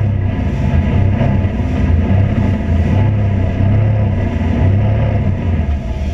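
A vehicle running steadily: a loud, even low drone with faint steady tones above it.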